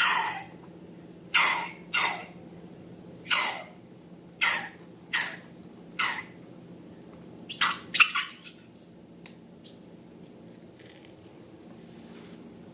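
Slime being handled, giving a run of short wet squelches, about one a second, which stop around eight seconds in. A faint steady low hum runs underneath.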